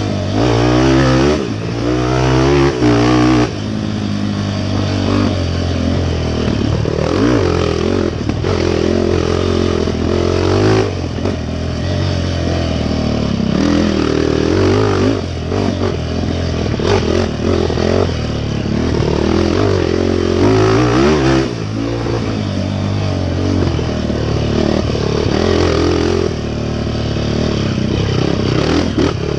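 Off-road racing engine revving hard and rising and falling in pitch as it is ridden through the course, with brief drops as the throttle closes, and some clatter over the rough ground.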